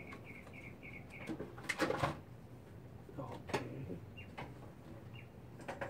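A small bird chirping: a quick run of about seven short, high chirps in the first second or so, then a couple of single chirps later. A few knocks and clatters, the loudest near the middle, come from parts being handled on the bench.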